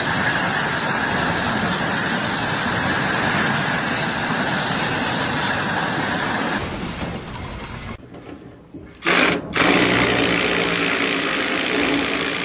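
A machine running steadily, loud and noisy, fading down after about six seconds; after a short break a second steady machine sound starts about nine seconds in.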